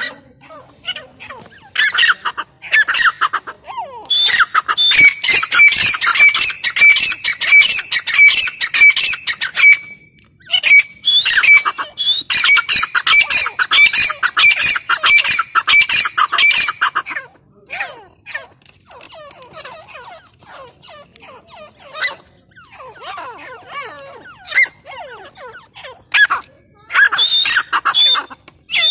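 Caged grey francolins (teetar) calling: loud, rapid runs of repeated shrill notes in two long bouts with a short break between them. Quieter scattered calls follow, then another loud burst near the end.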